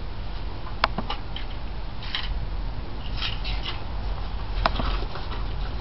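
Handling noise of small fishing gear: a few sharp clicks and brief rustles as items are turned over in the hands, over a steady low rumble.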